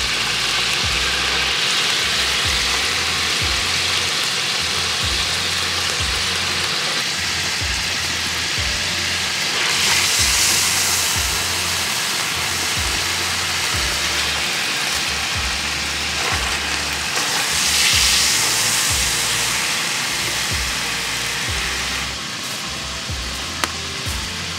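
Hot fat sizzling in a large steel frying pan over a wood fire, a steady hiss that swells louder twice. Low background music runs underneath.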